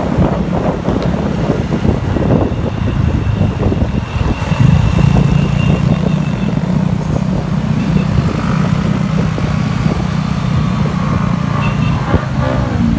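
Motorcycle engine running steadily at road speed close to the microphone, with traffic around it. Wind buffets the microphone for the first few seconds, and from about four seconds in the steady low engine drone dominates.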